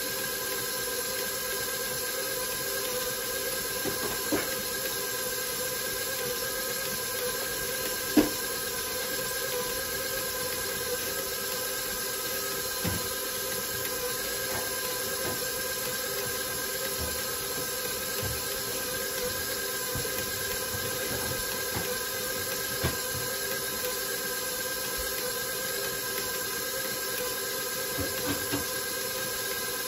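KitchenAid Professional 5 Plus stand mixer running steadily, its flat beater turning through a bowl of flour, giving an even motor hum and hiss. A few short clicks sound over it, the sharpest about eight seconds in.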